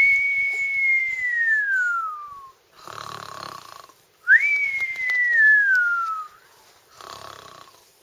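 A person imitating a cartoon snore: a long whistle falling in pitch on each out-breath and a snoring sound on each in-breath. It goes whistle, snore, whistle, snore.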